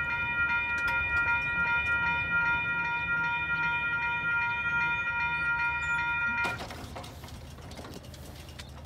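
Railroad crossing bell ringing with rapid, evenly repeated dings while the crossing gates rise after the train has cleared. The bell cuts off abruptly about two-thirds of the way through, leaving a softer rushing noise.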